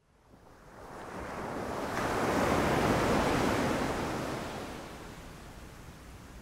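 A long rush of noise that fades in from silence, swells to a peak about three seconds in, then dies slowly away.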